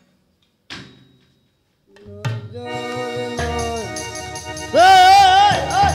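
A single short knock about a second in. Then background music starts about two seconds in: held chords, joined by a low bass, and a loud wavering melody line with strong vibrato near the end.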